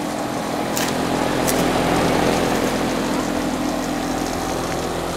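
A 2011 Trane XB13 3-ton air-conditioner condenser running steadily. The Alliance scroll compressor gives a steady hum of several tones under the even rush of air from the condenser fan.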